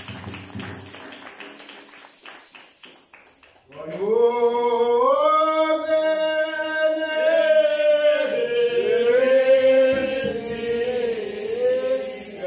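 A single voice begins a slow church hymn about four seconds in, holding long notes that slide from one pitch to the next. Before it, a quick run of light taps fades away.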